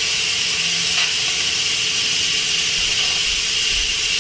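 Electric pressure cooker venting through its steam-release valve just switched from sealing to venting: a loud, steady hiss of pressurised steam escaping as the pressure is let out after cooking.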